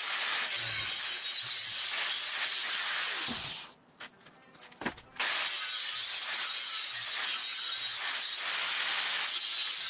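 Angle grinder with an abrasive disc grinding into square steel tubing, a harsh, steady hiss. The grinder winds down about three and a half seconds in and a single knock follows; it starts grinding again a little after five seconds and runs on.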